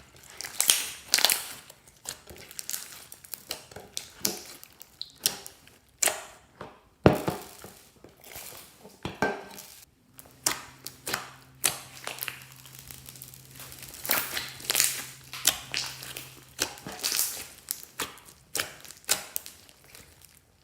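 Glossy slime being squeezed and worked by hand, giving irregular crackling, crunching pops and squelches.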